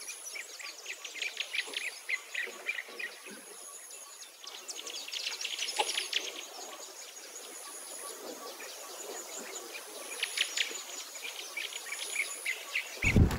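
Birds chirping and twittering in quick short notes, over a thin high insect whine that comes and goes in spells. In the last half second it gives way to a low, even rumble.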